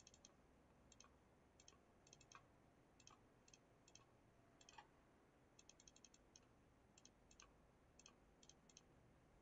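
Faint computer mouse clicks over near silence, some single and some in quick runs of several.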